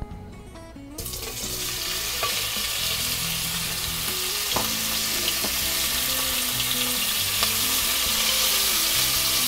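Diced bacon (tocino) dropped into hot oil in a pot about a second in, starting a sizzle that swells a little and keeps going. A few light knocks as the pieces are stirred with a spatula.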